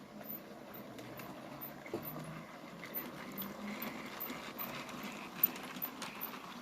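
A locomotive running with a faint intermittent squeak and light clicking, which the uploader suspects comes from the tender.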